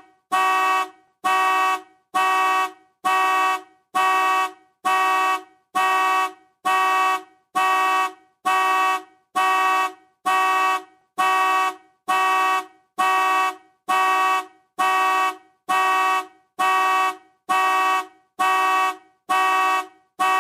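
Car alarm sounding the car's horn in a steady series of short honks, about one a second, each the same pitch and length.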